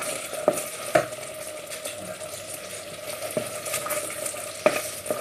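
Risotto sizzling in a pan as it is stirred, with a few sharp knocks of the spoon against the pan.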